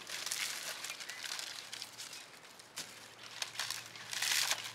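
Small fire of sticks and dry fronds crackling, with many small pops throughout. About four seconds in there is a louder burst of crinkling as more dry fronds are laid onto the fire.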